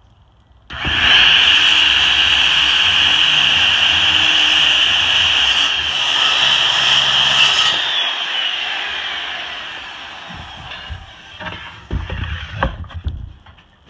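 Handheld circular saw starting up and making a straight cut through an MDF board, a steady high whine for about seven seconds, then winding down with a falling pitch. A few knocks near the end as the cut pieces are moved.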